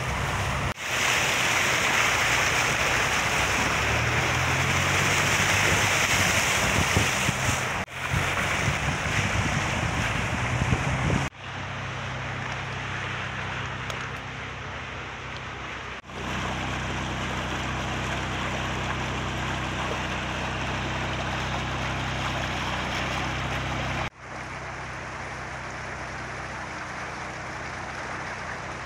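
Steady outdoor wind and water noise from phone recordings of a storm-flooded, hail-covered street, changing abruptly at several cuts. A low steady hum runs under the later stretches.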